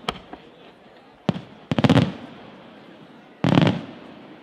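Aerial firework shells bursting overhead. There is a sharp crack right at the start and a single bang about a second in, then a quick cluster of crackling reports near two seconds and another cluster about three and a half seconds in.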